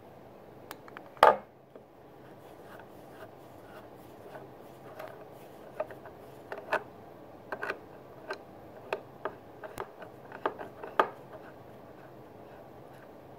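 Wismec Predator 228 box mod handled on a wooden table, with one loud knock about a second in and then a run of short, irregular clicks, single and in pairs, from about five to eleven seconds in. The clicks are typical of its fire button being pressed repeatedly to test a fire that cuts out.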